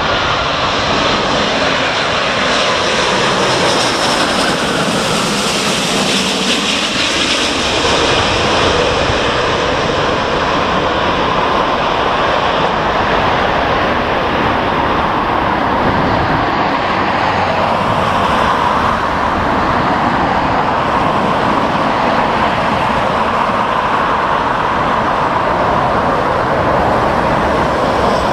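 Airbus A350 airliner's twin jet engines as it flies low overhead on landing approach: a loud, steady roar, with a whine that falls in pitch as the aircraft passes about five seconds in.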